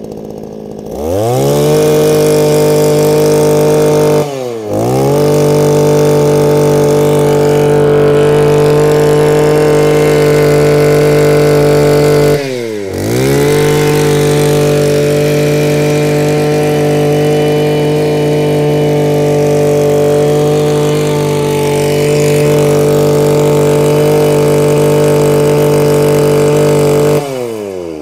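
Mitsubishi TL231 23cc two-stroke brush cutter engine revved to full throttle and held there. The pitch dips and climbs back twice, about four and twelve seconds in, as the throttle is eased off and opened again. Near the end the throttle is released and the engine falls back.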